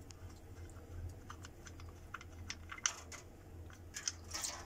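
Light, irregular clicks and scrapes as a transfer case drain plug on a 2009 Chevrolet Tahoe is turned out by hand. The clicks come faster toward the end, and a short splash follows as the old oil starts to run out.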